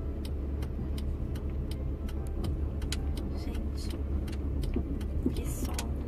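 Car driving, heard from inside the cabin: a steady low road-and-engine rumble with light, scattered clicks and ticks over it.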